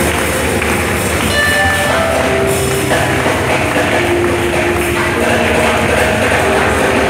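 Loud live worship music: held notes that move from pitch to pitch over a dense, steady wash of percussion.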